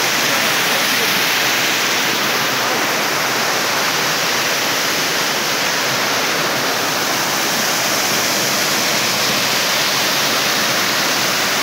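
Small waterfall cascading over rocks into a pool: a steady, loud rush of falling water.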